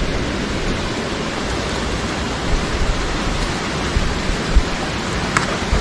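Steady hiss of rain falling, with a few faint taps.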